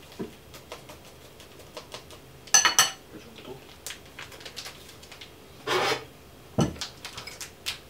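Kitchen utensils clinking and scraping against cookware while a lemon cream sauce is mixed: scattered light clicks, a loud ringing clatter about two and a half seconds in, a longer scrape near six seconds and a knock just after.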